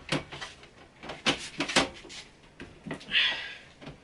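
PC case side panel being pushed and slid onto the case: a few sharp knocks and clicks, then a short scrape about three seconds in.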